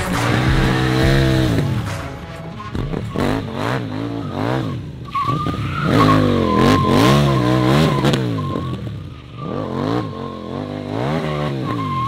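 KTM Duke 790's 799cc twin-cylinder engine revving up and falling back again and again as the rear tyre slides in drifts. From about five seconds in, a wavering tyre squeal comes and goes over the engine.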